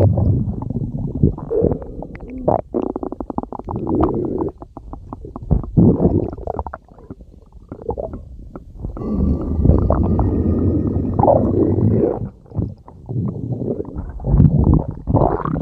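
Stomach growling sound effect: long, low rumbles and gurgles, with a fast rattling flutter a few seconds in and a brief quieter lull before the rumbling swells again.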